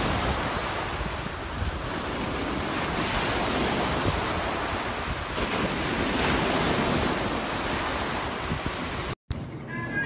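Sea surf breaking and washing up a beach, swelling every few seconds, with wind buffeting the microphone. It cuts off suddenly near the end.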